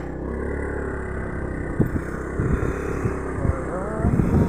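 Motor scooter engine running steadily while riding, with several sharp thumps in the second half as it goes over a rough, muddy dirt track.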